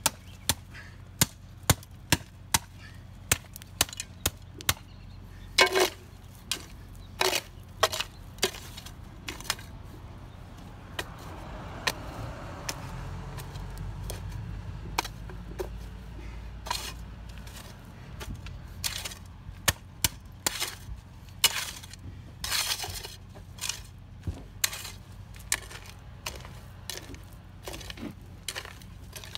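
GradrBlade flat-bladed hand tool chopping repeatedly into a pile of dirt and mulch: a long irregular string of sharp strikes, about one or two a second, a few of them longer and heavier. A low rumble swells and fades in the middle.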